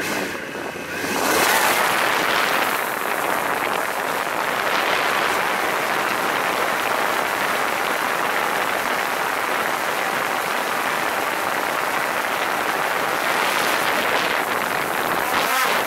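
Quadcopter drone's motors and propellers running right beside the microphone, heard as a loud, steady rushing hiss of rotor wash. It swells about a second in as the drone lifts off and climbs, and dips briefly near the end.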